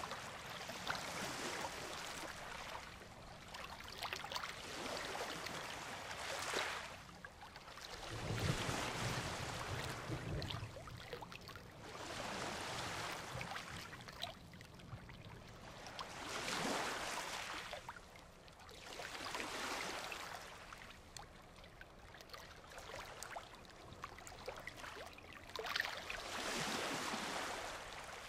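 Ocean surf breaking on a beach, the hiss of the waves swelling and fading every few seconds. A low rumble joins one of the swells about eight seconds in.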